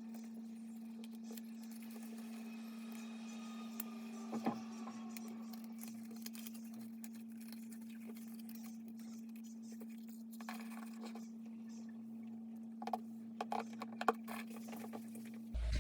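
Light handling sounds, scattered small taps and clicks, with a few sharper ones about four seconds in and a cluster near the end, over a steady low hum.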